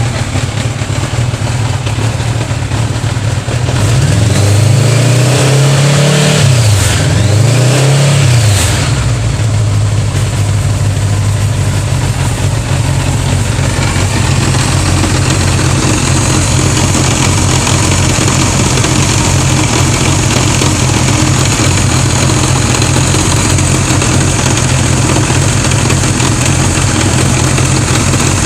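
1981 Honda GL1100 Gold Wing's flat-four engine idling, blipped twice in quick succession about four seconds in, each rev rising and falling back, then settling to a steady idle.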